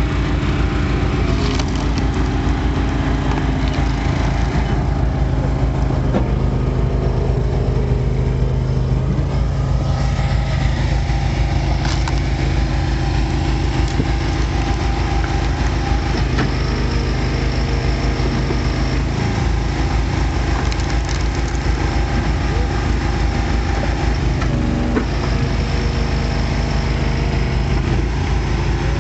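Easton Made hydraulic log splitter's 23 hp V-twin Briggs & Stratton Vanguard engine running steadily, its note shifting now and then as the ram takes load, with a few sharp cracks of knotty wood splitting.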